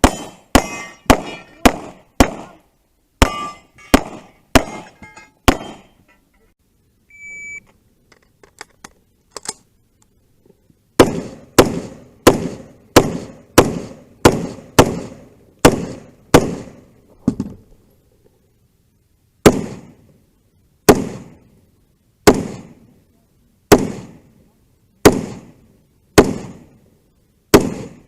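Gunfire on a 3-gun stage: a quick string of about ten shots, then a pause of about five seconds with faint metallic clinks. Then a steady string of about fourteen shots, two a second, and a slower series of about seven shots, one every second and a half, each shot ringing out after it.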